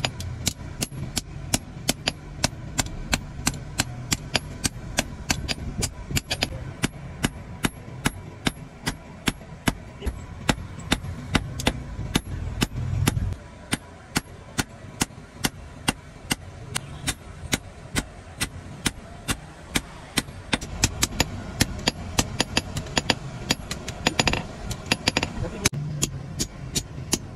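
Hammer blows on hot iron laid on a steel block anvil, a blacksmith forging a digging tool. The blows ring out in a quick, steady rhythm of about three a second.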